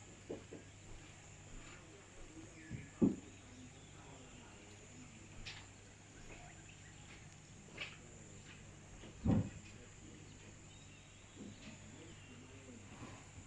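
Quiet outdoor ambience of steady high insect chirring, with a low hum and a few short thumps, the loudest about 3 seconds and 9 seconds in.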